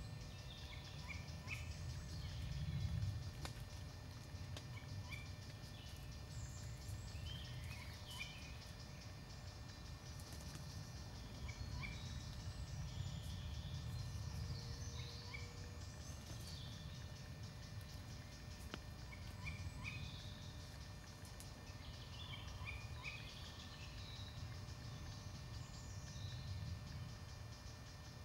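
Small woodland birds chirping and calling in short, scattered notes over a steady low rumble.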